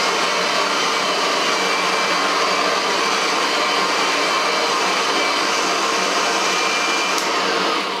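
Kirby Sentria upright vacuum cleaner running steadily with its Tech-Drive self-propulsion engaged. About seven seconds in it is switched off with a click and the motor winds down with a falling whine.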